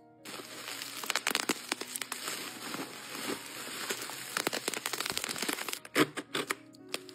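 Plastic bubble wrap being crumpled and unwrapped by hand: a continuous crinkling with many sharp crackles, the loudest about 6 seconds in.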